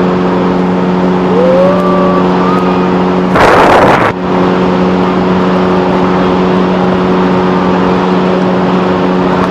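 Motorboat's outboard engine running steadily at speed, one even pitch throughout. About three and a half seconds in, a loud rushing burst lasts under a second.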